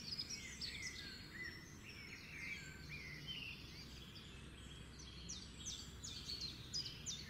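Faint birdsong: many short chirps and quick whistled calls from several small birds, coming a little thicker near the end.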